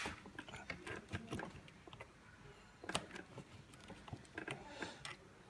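Faint, scattered small clicks and taps of plastic and metal parts being handled as the back part of a push-pull switch is fitted into a hole in a scooter's plastic panel, with one sharper click about three seconds in.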